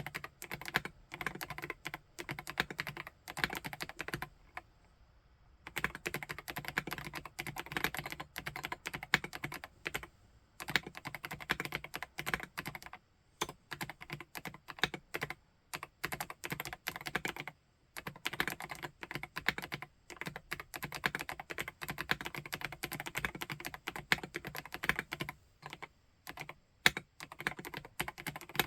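Typing on a PK x BIOI Command 65 custom mechanical keyboard: fast, continuous keystrokes in long runs, broken by a pause of about a second and a half some four seconds in and by a few shorter pauses later.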